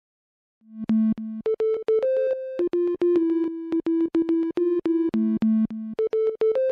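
Background music: a synthesizer melody of short, sharply struck notes, starting about half a second in, with the phrase beginning to repeat near the end.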